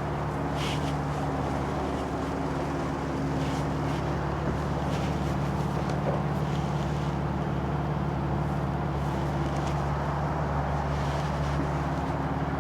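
Steady low hum of a running motor or engine, holding one even pitch throughout, with a few faint light scrapes and clicks over it.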